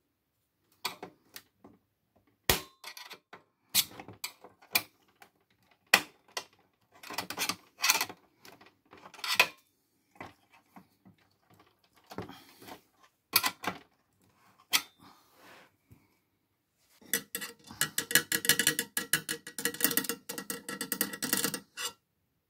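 Sheet-metal chassis and mini-disc mechanism of a Sony micro hi-fi being handled and worked loose: scattered metallic clicks and knocks, then about five seconds of rapid, continuous rattling and clicking near the end.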